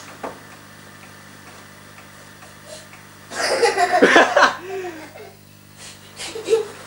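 A young boy's loud burst of laughter and shrieking about halfway through, lasting just over a second, with shorter laughs near the end, during rough play between two small boys.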